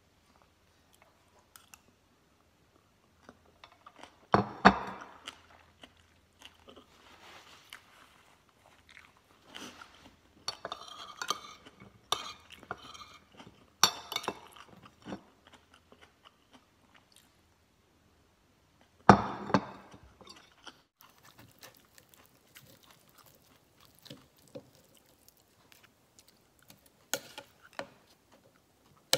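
A person chewing and crunching a mouthful of green papaya salad and rice. A few sharp knocks of spoon and fork on the plate come through, the loudest about four and a half seconds in and again near nineteen seconds.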